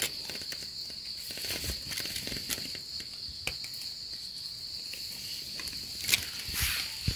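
Insects keeping up a steady high-pitched drone, with small clicks and rustles as a mushroom is handled in leaf litter and trimmed with a knife; the handling sounds grow a little louder near the end.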